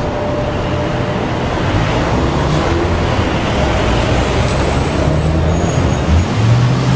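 Steady road traffic: the engines of cars and heavier vehicles such as buses running close by, with a low engine hum under the traffic noise.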